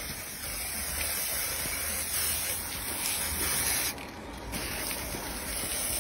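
Aerosol spray-paint can hissing steadily as paint is sprayed onto a car's bodywork. The hiss stops briefly about four seconds in, then starts again.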